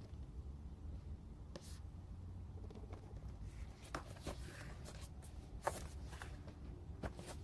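Faint rustling and light knocks of packaging being handled, a handful of separate short sounds over a low steady hum.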